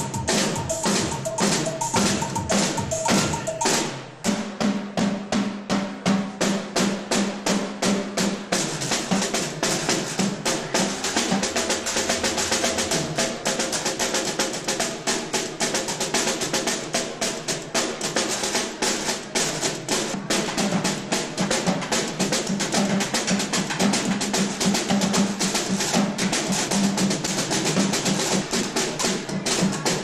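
Live instrumental music built on percussion: fast, dense snare drum strokes played with sticks over held low keyboard notes. There is a brief drop in loudness about 4 seconds in.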